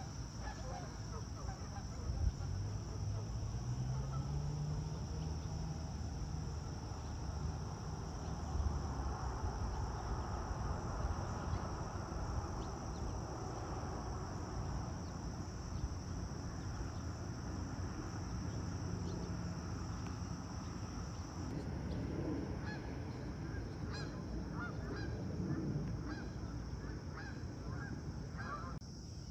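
Outdoor lakeside ambience: distant honking waterfowl over a low rumble of wind on the microphone.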